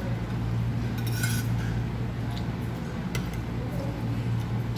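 Spoon and fork clinking against a ceramic plate a few times while eating, the loudest clink a little over a second in, over a steady low hum.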